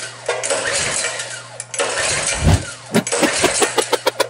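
Small single-cylinder mini bike engine being pull-started: two long yanks on the recoil starter, then a fast run of sharp pops as it fires without settling into a run. Its camshaft timing is set wrong, the witness marks on the cam and crankshaft not lined up.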